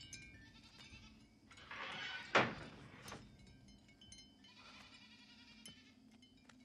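A farm animal bleating faintly, with one sharp knock about two and a half seconds in and a faint high ringing a little later.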